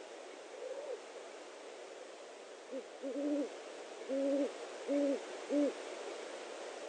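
Owl hooting: a faint hoot about half a second in, then a series of five low, level-pitched hoots from a little under three seconds in, the first very short and the others evenly spaced, over the nest camera's steady hiss.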